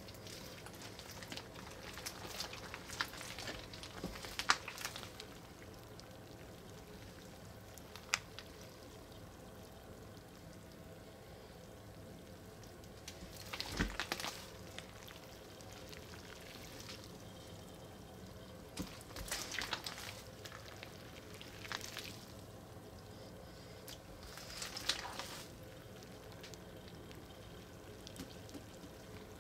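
Clear slime full of Orbeez water beads being squeezed and kneaded by hand: wet squelching and crackling that comes in short spells every few seconds, with quieter stretches between.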